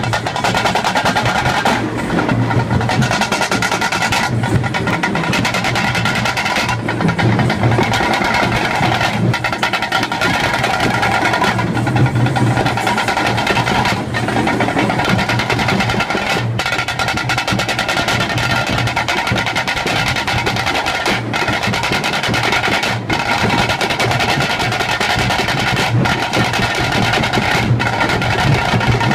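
Live procession drum band playing loud, continuous rhythmic drumming, with steady held tones sounding above the drums.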